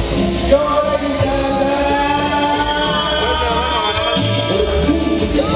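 Latin dance music played loud through a sonidero's sound system, with heavy bass throughout, and a man's voice over the microphone on top of it.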